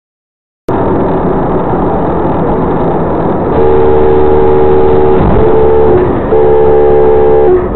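Traffic and engine noise cutting in suddenly, then a car horn honking three times: a long blast about three and a half seconds in, a short one, and another long one near the end.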